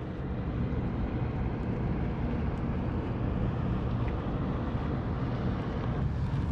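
Steady low wind rumble on the action camera's microphone.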